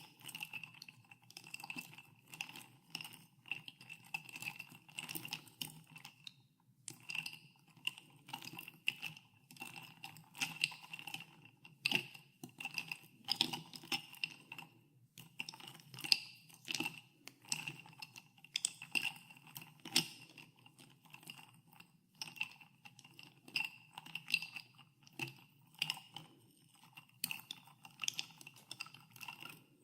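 Ice cubes stirred in a glass of carbonated water, knocking and clinking against the glass in a dense, irregular run with a ringing glass tone. The stirring pauses briefly about six and a half seconds in and again about fifteen seconds in.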